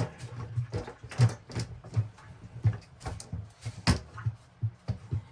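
Irregular knocks and clicks from hands working with tools and parts, about a dozen, with a sharp one at the start and a loud one about four seconds in.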